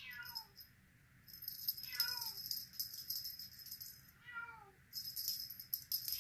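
Silver Bengal kitten mewing: three short, high calls that fall in pitch, about two seconds apart, with another starting at the very end. Between and under them runs a rattling rustle from a wand cat toy being shaken.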